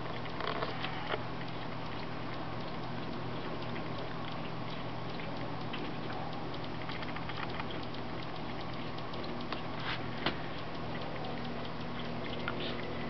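Raccoon lapping water from a black plastic container: soft, irregular wet clicks and laps, with a sharper click about ten seconds in.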